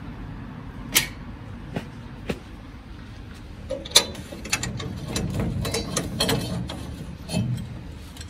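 Irregular mechanical clicks and knocks. Single sharp clicks come about a second in, at two and at four seconds, then a quicker cluster of clicks with a low rumble in the second half.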